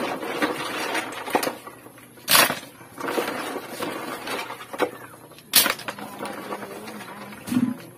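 Hands washing a mud-gathered catch in a basin of water: steady sloshing and clattering, with a loud splash about every three seconds.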